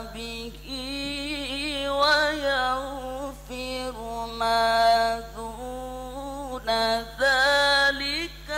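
Quran recitation chanted in the melodic, drawn-out style: one voice holding long notes, ornamenting them with wavering turns, with brief breath breaks, over a steady low hum.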